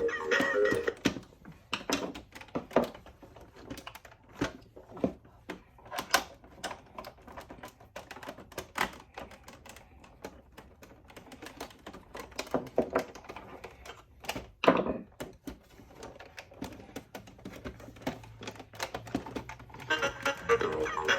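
Irregular clicks, taps and knocks of hands and a screwdriver working on the hard plastic casing of a Sax-A-Boom toy saxophone, with one louder knock about 15 seconds in.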